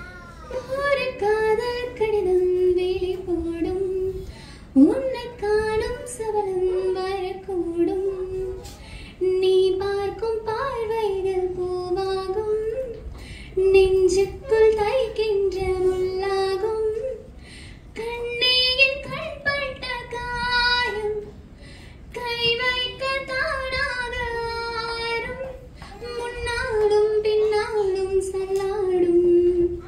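A woman singing solo in a high voice into a handheld microphone, amplified through the hall's sound system. She sings melodic phrases of a few seconds each, with short pauses for breath between them.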